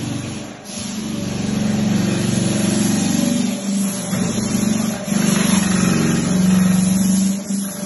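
Electric floor sanding machine running, a loud motor hum that keeps swelling and dipping in pitch and level as it works the floor.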